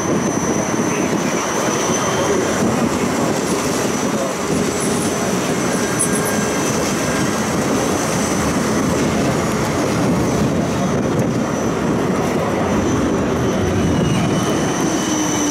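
Siemens Combino tram running along the line, heard from inside the car: a steady rolling and running noise with a thin high whine that fades in the middle and comes back near the end.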